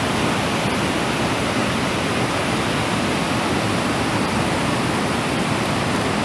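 Fast mountain river rushing over rocks and rapids: a steady, unbroken rush of white water.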